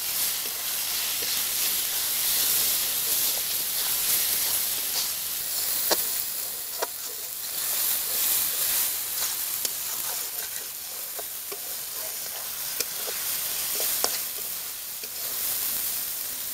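Spiced onion-tomato paste sizzling in hot oil in a metal kadai, with a spatula stirring it and scraping and tapping against the pan now and then. This is the bhuna (kosha) stage: the masala being fried down in the oil.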